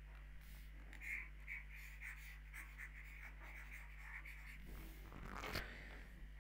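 Low, steady electrical hum under faint, irregular scratches and taps, with a brief louder rustle about five seconds in.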